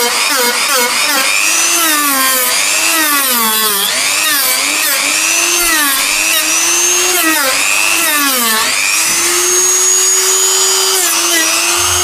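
Dremel rotary multi-tool whining as its 80-grit sanding wheel grinds paint off a cracked plastic car bumper. The pitch repeatedly sags as the wheel is pressed into the bumper and climbs back as it eases off, then runs free at a steady, slightly higher pitch for about two seconds past the middle.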